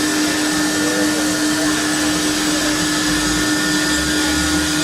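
Steady, loud drone of running woodworking CNC machinery: an even hissing rush with a constant hum.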